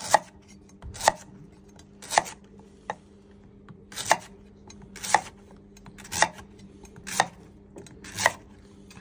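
Chef's knife slicing through a Hokkaido pumpkin onto a wooden cutting board, about one crisp cut a second, each ending in a knock of the blade on the board.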